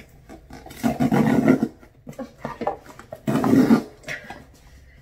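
Cardboard box's zipper-pull tear strip being ripped open: two hard rough tearing rips about two and a half seconds apart, the first about a second in and the longer of the two, with fainter crackling of the cardboard between.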